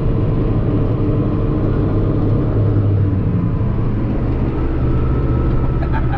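Case 1090 tractor engine running steadily under load, heard from inside the cab as a loud, constant low drone that shifts a little about four seconds in.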